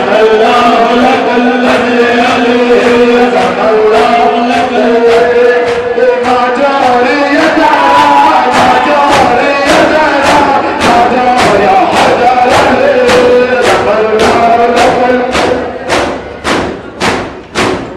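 Men chanting a noha, a Shia Muharram lament, into microphones, with rhythmic chest-beating thumps (matam) from open hands striking chests in time. Near the end the chanting stops and the chest strikes carry on alone at about three a second.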